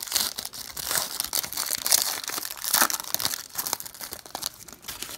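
A Clear Vision football card pack's wrapper being torn open and crinkled, an irregular crackling rustle that dies away near the end.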